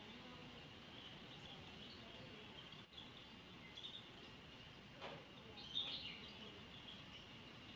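Faint bird chirps, short and scattered, with a louder cluster of chirps a little before six seconds in, over a steady high-pitched background hum and hiss.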